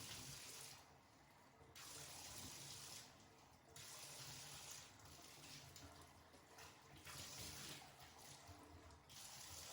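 Faint rinse water running over a dog in a bathtub, coming in spells of a second or two with short pauses between them.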